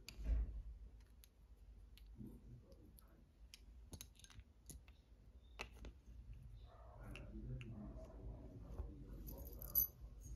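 Faint, scattered clicks and taps of small objects being handled: plastic lip gloss tubes and a glass perfume bottle picked up and set down on fabric. A brief bright clink near the end as a metal chain necklace is lifted.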